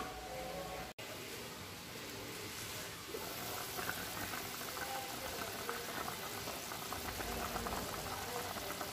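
Pot of sinaing na tulingan, mackerel tuna and pork fat in oily broth, simmering with a steady bubbling from about three seconds in.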